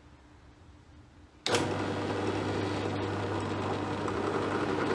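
Bench drill press motor switched on about a second and a half in, then running steadily with a constant low hum while a 5.5 mm bit is fed down into aluminium rectangular tube.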